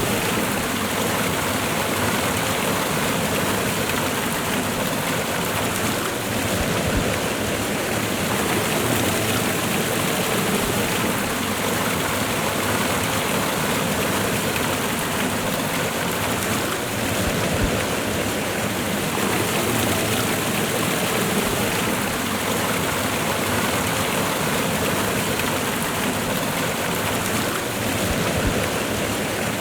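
Waterfall and river water rushing in a steady, even roar.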